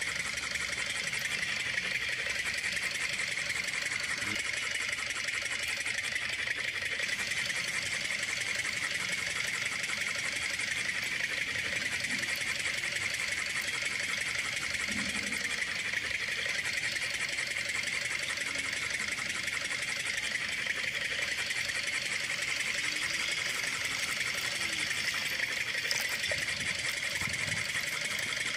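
Small electric water pump motor running steadily, a continuous even hum with no change in speed.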